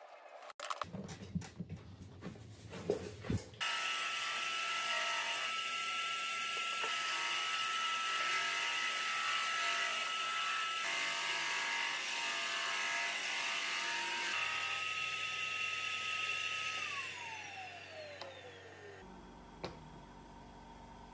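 Benchtop drum sander running with a steady whine while segmented wooden rings are fed through on its conveyor belt. The noise begins suddenly a few seconds in, after some knocks of wood being handled. Near the end the machine is switched off and its pitch falls as it spins down.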